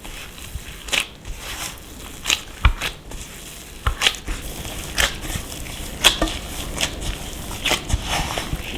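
Crisp crunching and crackling, with sharp crunches coming irregularly about once a second.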